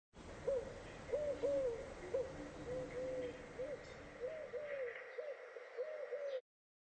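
Pigeons cooing: a run of short, hollow hooting notes repeated about twice a second over a low background rumble that drops away near the end. The sound starts and cuts off abruptly.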